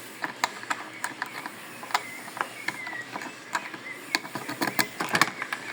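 Key working the lock and latch of a 48-litre plastic motorcycle top case: an irregular run of small clicks and rattles, with a brief squeak about three seconds in.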